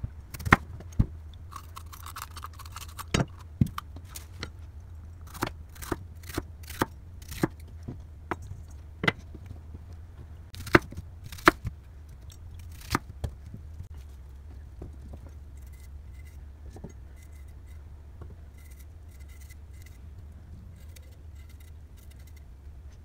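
Chef's knife slicing bell pepper, onion and asparagus on a wooden cutting board: irregular sharp knocks of the blade striking the board, thinning out in the second half. A low steady hum underneath.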